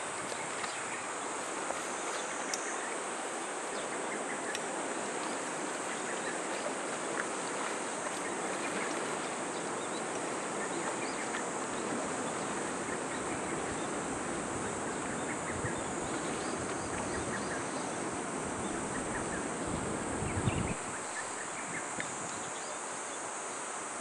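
Steady outdoor hiss of insects chirring in the riverside greenery, over the low wash of slow river water and paddles dipping. The lower rushing part falls away about twenty seconds in.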